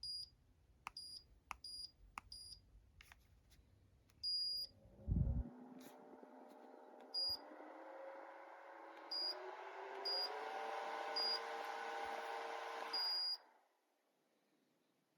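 Orteen 9-inch portable rechargeable fan: short high beeps as its buttons are pressed. About five seconds in its motor starts humming, rising in pitch as it spins up and stepping higher as the speed is raised. It shuts off after a longer beep near the end.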